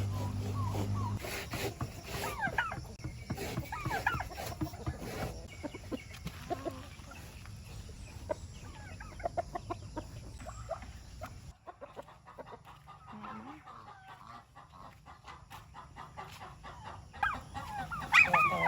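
Chickens clucking, with many short calls scattered throughout; the sound drops off abruptly about eleven seconds in, then the calls go on more faintly.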